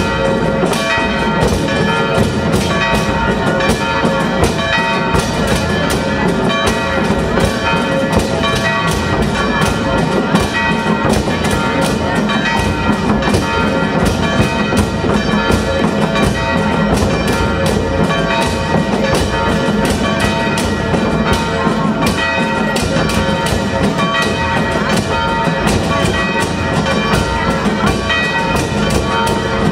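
Procession music from a marching band: drums keep a steady beat under brass, with bells ringing through it.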